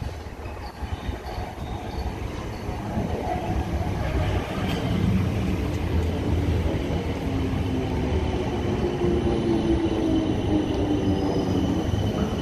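A South Western Railway Class 455 electric multiple unit running in alongside the platform. The rumble of its wheels on the rails grows louder over the first few seconds, then holds steady with a whine over it.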